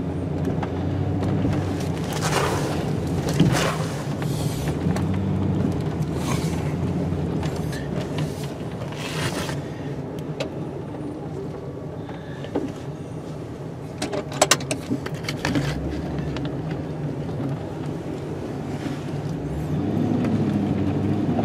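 Engine of a snow-plow vehicle running while plowing a driveway. Several brief rushes of noise come through it, and a quick run of sharp clicks comes about two-thirds of the way through.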